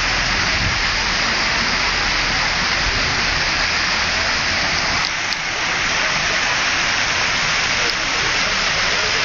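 Public fountain's water jets splashing steadily into the stone basin, a continuous rushing hiss.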